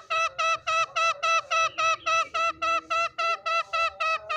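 Green junglefowl calling in a fast, even series of clear pitched notes, about four to five a second, each note with a small dip in pitch.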